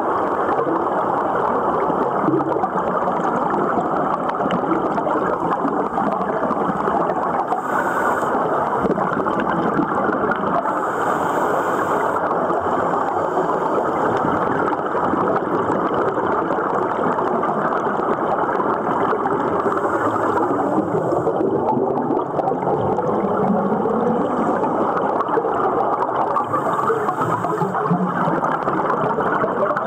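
Underwater noise of a scuba dive heard through a camera's underwater housing: a steady rushing and gurgling of scuba divers' exhaust bubbles, with short hissy bursts a few times.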